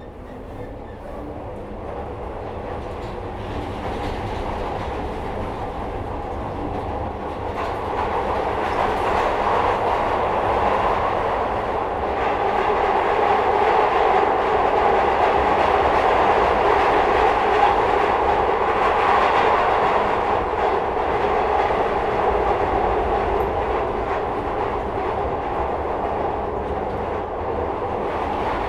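Inside a Metro-Cammell Glasgow Subway car as the train gathers speed and runs on: the running noise grows steadily louder over the first dozen seconds, then holds at a steady high level.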